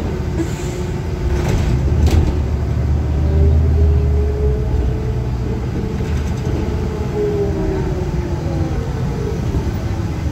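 New Flyer D40LF diesel city bus heard from a passenger seat while it drives along: a steady low rumble of engine and road, swelling for a couple of seconds about two seconds in, with a whine that slowly rises and then falls in pitch. Two sharp rattles about one and a half and two seconds in.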